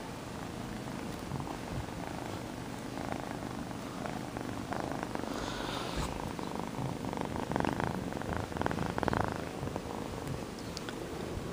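Domestic kitten purring loudly right at the microphone, a continuous rapid rumble that swells louder for a couple of seconds past the middle. A brief rustle comes about six seconds in.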